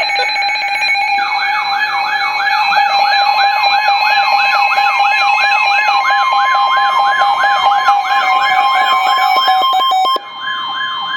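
Overlapping emergency alert sounds: a siren tone sweeping down fast and repeating about two and a half times a second, over steady alarm tones. A steady tone near 1 kHz, like a weather radio's warning alarm tone, comes in about halfway. Most of the steady tones cut off about ten seconds in.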